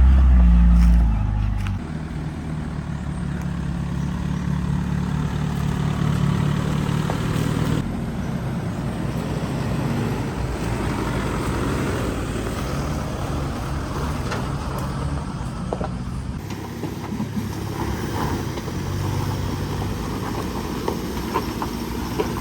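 Off-road 4x4 truck engine running as it drives along a dirt trail, with tyre and body noise; loudest for the first second or two, then steady.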